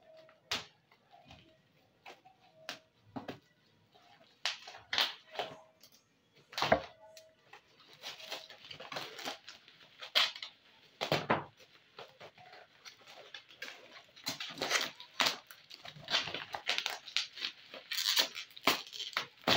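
Handling noise from unboxing. Scattered knocks and clicks come first, then from about eight seconds in, near-continuous rustling and crinkling as packaging is handled close to the microphone.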